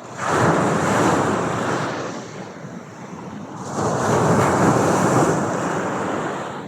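Surf washing in twice, each swell a rising rush of water noise that fades away.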